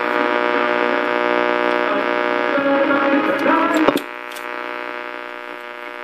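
Delco 984077 AM push-button car radio playing an AM broadcast through a speaker: steady sustained music tones with a hum under them. About four seconds in, a sharp click as a push button is pressed, and the sound drops to a quieter, humming station.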